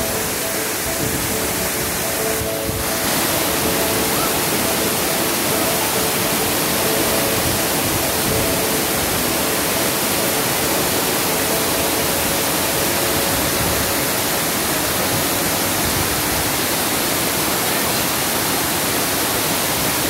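Waterfall pouring over a rock face into a plunge pool: a steady, unbroken rushing of falling water.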